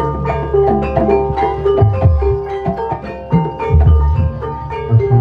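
Live Javanese gamelan music accompanying an ebeg dance: struck metal keys ring out a busy melody of held notes over recurring deep drum strokes.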